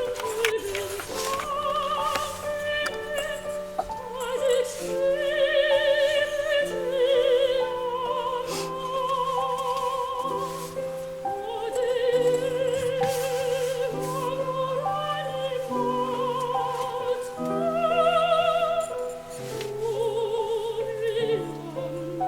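Background music: a slow, classical-style operatic vocal melody with wide vibrato over sustained accompanying chords.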